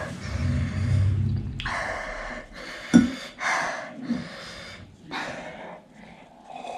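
A person gasping and breathing hard through the mouth in several forceful breaths, a second or two apart, with a short knock about three seconds in; the sort of breathing that follows a burning mouthful of ghost pepper noodles.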